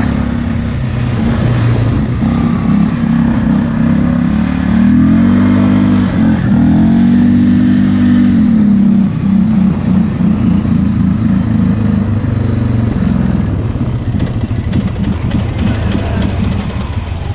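ATV engine revving and running hard, its pitch rising and falling several times, easing off over the last few seconds.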